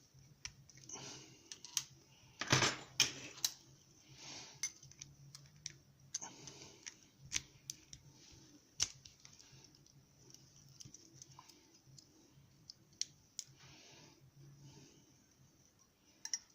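Small metal parts of a hand-made challenge lock being handled and worked by hand: scattered sharp clicks and short scrapes, with a cluster of louder clicks and rattles about two to three and a half seconds in.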